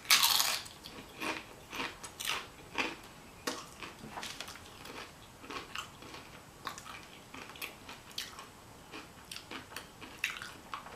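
Close-up chewing and wet mouth sounds of someone eating a rice-filled burrito bowl, irregular and clicky, with one louder noise right at the start.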